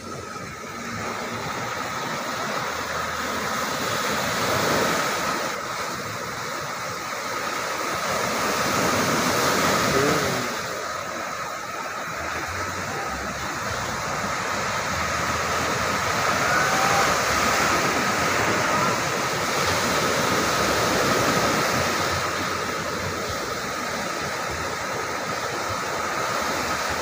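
Ocean surf breaking on a sandy beach: a steady rush of whitewater that swells and eases every few seconds as waves come in. A faint steady high tone runs under it.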